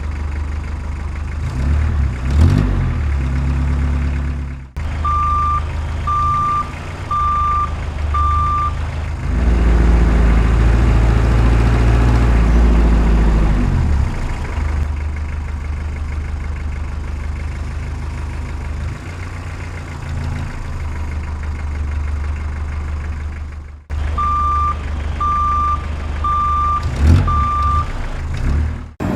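Heavy truck engine sound running with a reversing alarm that beeps four times, about once a second, twice over, typical of an RC dump truck's sound module. In the middle the engine swells louder for a few seconds and then eases off. The sound cuts off abruptly twice.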